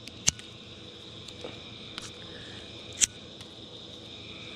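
Steady chirring of crickets, with two sharp clicks: one just after the start and another about three seconds in.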